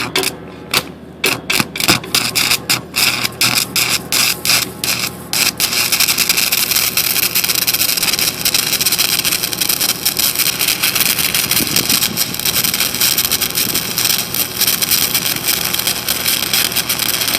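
Stick (arc) welding laying a tack: the electrode sputters in short stuttering starts for the first five seconds or so, then the arc holds and runs with an even, steady crackle and sizzle.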